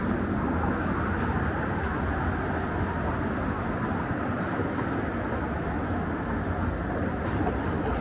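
Steady rumble of downtown street traffic, with faint high ticks about every two seconds.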